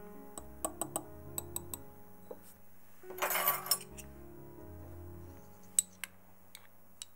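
Soft background music over light clinks and taps of kitchen utensils against glass bowls and dishes, with a brief noisy swish about three seconds in.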